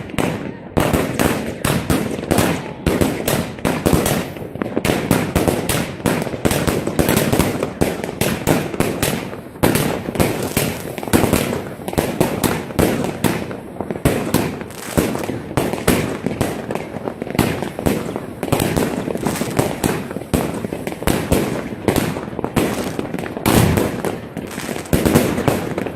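New Year's Eve fireworks and firecrackers going off densely, many bangs and crackles overlapping one after another without a pause.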